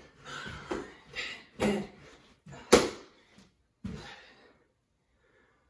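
Feet landing on the floor in a run of star jumps, about two thuds a second with hard breathing between them. The thuds stop about four seconds in.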